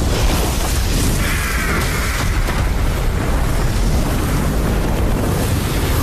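Sound-designed fantasy battle blast: a continuous deep, rumbling explosion. About a second in, a higher, wavering screech rides over it for about a second.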